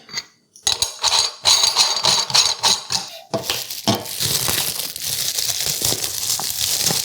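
Meat grinder attachment parts knocking and clicking as they are handled, then a steady crinkling rustle of plastic packaging being unwrapped.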